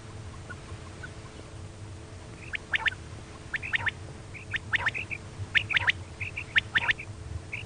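Common quail calling: groups of two or three sharp, high notes repeated about once a second, starting about two and a half seconds in, with shorter notes between them. This is the female quail call used to lure quail for hunting. A low steady hum runs underneath.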